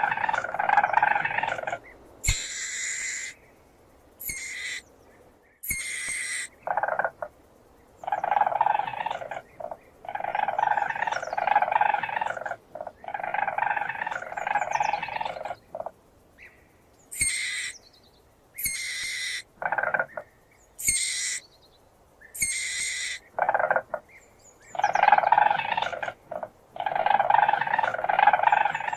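Weasel calling: bouts of rapid chattering trills, each about a second and a half long, alternating with short, high-pitched squeaks.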